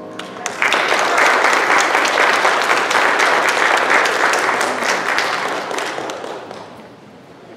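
Audience applauding as a grand piano piece ends: the piano's last notes die away, then clapping breaks out about half a second in, holds steady for several seconds and fades out near the end.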